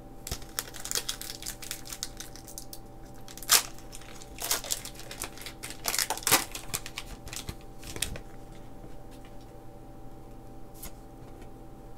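A Pokémon booster pack's foil wrapper crinkling and being torn open by hand. It comes in bursts over the first eight seconds, the sharpest about three and a half seconds in. Quieter handling of the cards follows.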